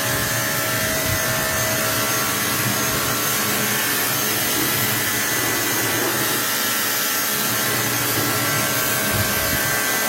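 Steady hiss and whine of an electric motor-driven machine running without a break while the soaped washing-machine tub is washed out.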